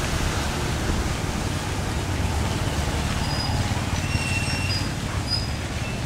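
Strong wind buffeting the microphone: a steady rushing noise with a heavy, fluttering low rumble.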